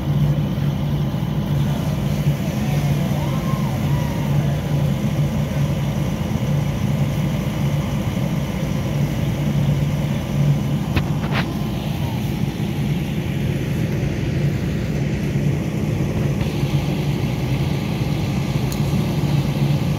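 A vehicle engine running steadily, a continuous low drone. A brief click comes about eleven seconds in.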